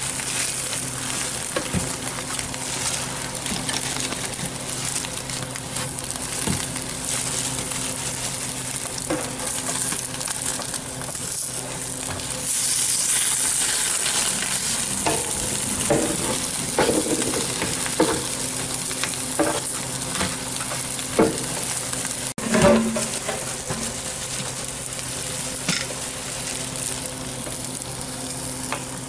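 Egg frying on a flat griddle pan, a steady sizzle, with a spatula and gloved hands scraping and tapping on the pan in the second half. One sharp knock stands out about three-quarters of the way through.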